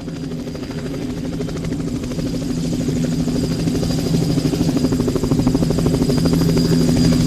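Coast Guard helicopter flying by. Its rotor gives a fast, even chop over a steady engine hum and a thin high whine, growing steadily louder as it approaches.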